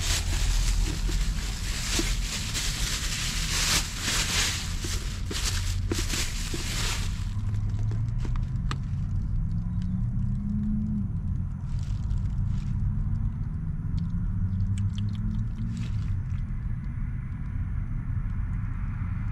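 Low rumble of passing vehicles, with engine tones that slowly rise in pitch twice. For the first seven seconds a loud rustling hiss with clicks lies over it, then stops suddenly.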